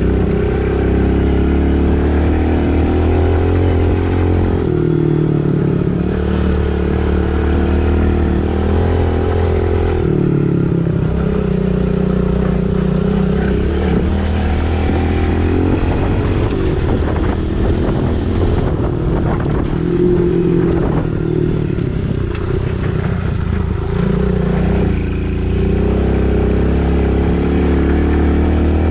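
Pit bike engine running under way, its note rising and easing off repeatedly as the throttle is opened and closed.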